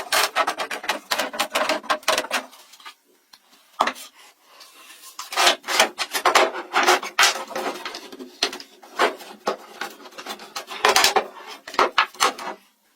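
Hand tool scraping and rubbing on wood in quick, repeated strokes, coming in bursts with a pause of a couple of seconds after the opening burst.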